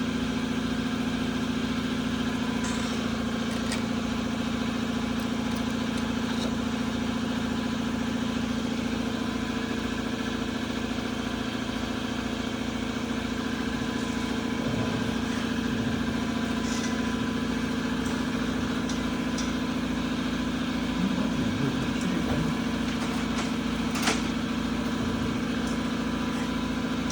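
A steady mechanical drone like an engine running at idle, with a sharp click near the end.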